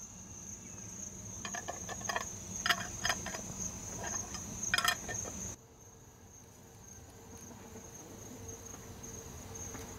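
Crickets trilling steadily in one high, unbroken tone. In the first half there is a run of sharp clicks and knocks. A little past halfway the background noise drops off abruptly, while the trilling goes on.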